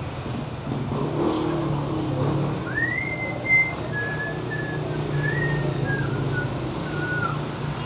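Someone whistling a short wavering tune of held and gliding notes, starting about three seconds in, over a steady low hum.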